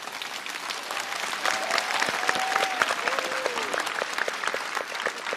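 Studio audience applauding, the clapping building over the first couple of seconds and easing near the end.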